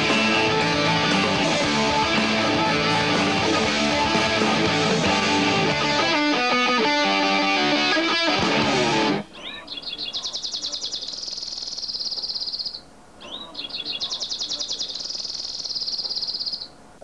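Guitar-driven rock music that cuts off abruptly about nine seconds in, followed by two long, high, rapid chirping trills with a short gap between them.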